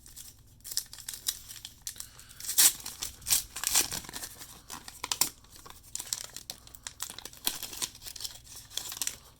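Wrapper of a 1989 Upper Deck baseball card pack being torn open and crinkled by hand, in a run of irregular crackling rips.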